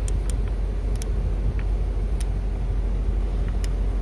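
The truck's 5.7-litre 350 V8 gasoline engine idling with a steady low rumble. A few faint clicks are heard as the liftgate control buttons are pressed.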